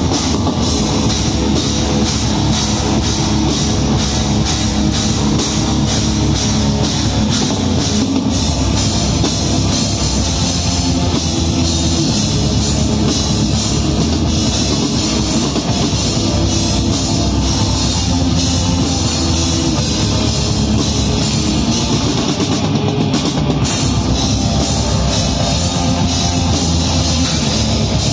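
Heavy metal band playing live: distorted electric guitar and bass guitar over a drum kit, loud and dense, with a steady run of drum strokes.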